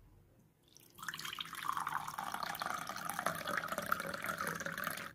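Water running steadily, starting about a second in and cutting off suddenly at the end.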